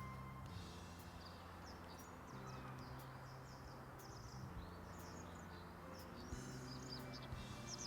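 Small birds chirping, many short, quick calls, faint against soft background music of low held notes that shift every second or two.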